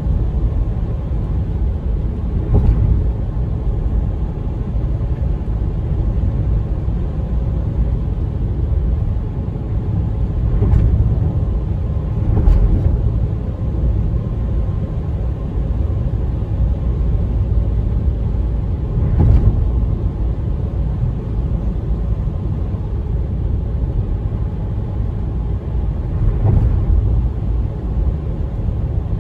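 Car cabin road noise: a steady low rumble of tyres and engine while driving, broken by about five brief thumps, the loudest about two-thirds of the way through.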